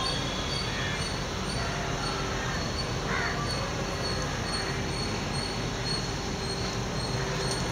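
Steady outdoor background noise with a low rumble. A faint high chirp repeats about twice a second, and a few faint bird calls come through, one about three seconds in.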